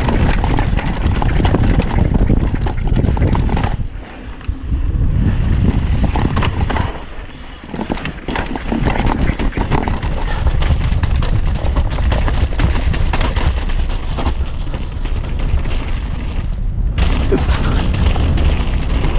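Mountain bike riding fast down a rough trail: heavy wind rumble on the microphone over the constant rattle and clatter of the bike and its tyres on stones and dirt, easing briefly twice.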